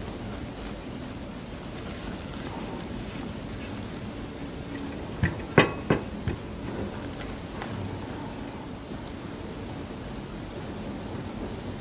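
Crisp, dry gamtae seaweed sheets crackling and rustling under fingers as rice is rolled up in them, with a few sharper clicks about halfway through.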